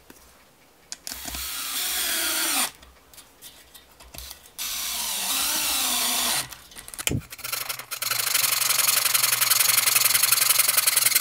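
Cordless drill running twice for about two seconds each, its pitch rising and falling with the trigger, as it pre-drills and drives screws into wooden 1x2 strips. After a sharp knock, a hand saw cuts steadily through the wood from about eight seconds in.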